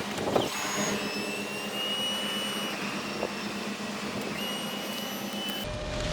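Vehicle driving: steady road and engine noise with a faint high whine. Near the end the sound changes abruptly to a deeper, louder rumble.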